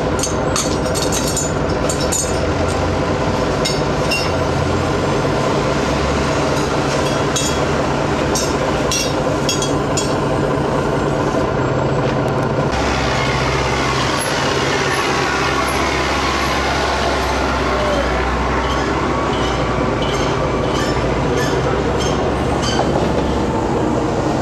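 Engine machinery running steadily, its note shifting partway through, with scattered clanks and knocks from the heavy bins being moved on the metal platform.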